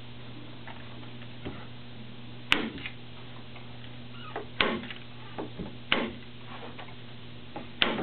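Hand staple gun firing staples through canvas into a wooden stretcher frame: four sharp clacks a second or two apart, the first about two and a half seconds in, with fainter clicks and handling noise between them. A steady low hum runs underneath.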